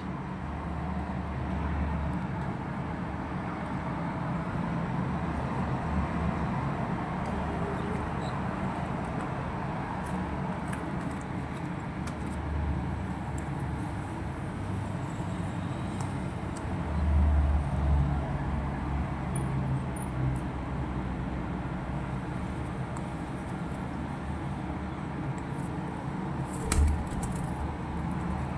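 Steady outdoor background rumble, like road traffic, with a few faint clicks and a louder swell about two-thirds of the way in.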